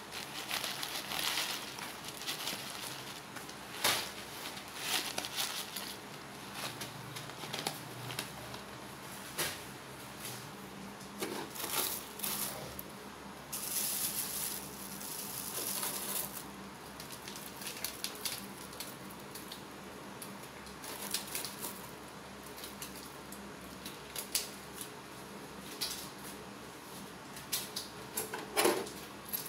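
A metal spoon clinking and scraping against a dish and plate as chopped spring onion and celery leaves are scattered over an omelette: irregular small taps with light rustling.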